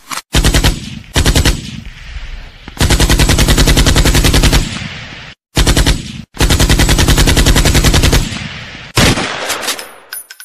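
Bursts of rapid machine-gun fire: a few short bursts, then two longer ones of about two seconds each, and near the end a single blast that dies away.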